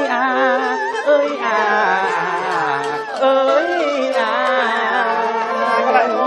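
A voice singing a traditional Vietnamese folk-style melody, drawing out long, ornamented notes with a wide vibrato and sliding pitch.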